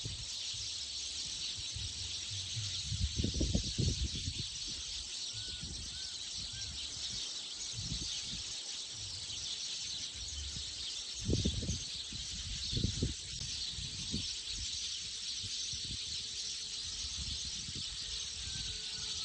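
A steady, high-pitched insect chorus, with a few low rumbles about three and a half, eleven and thirteen seconds in.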